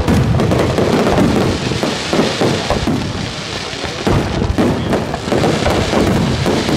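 Aerial firework shells bursting in quick succession: a loud, dense run of overlapping bangs with no pause between them.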